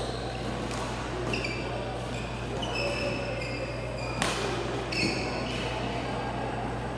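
Badminton rally in a large hall: shoes squeaking on the court several times, and a sharp crack of a racket hitting the shuttlecock a little past four seconds, with a lighter hit about a second later. Voices murmur in the hall behind.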